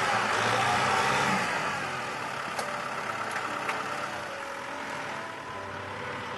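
Kubota M6040 tractor's diesel engine running, louder at first and easing off about two seconds in. A few sharp clicks come in the middle.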